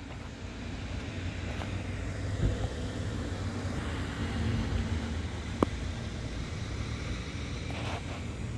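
Steady low rumble of road traffic, with a single sharp click about five and a half seconds in.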